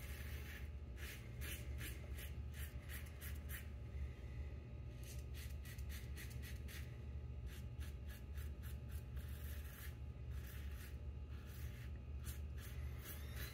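Double-edge safety razor with a Dorco PL-602 blade scraping through lathered stubble: short, faint, scratchy strokes, several a second, in runs with brief pauses between passes.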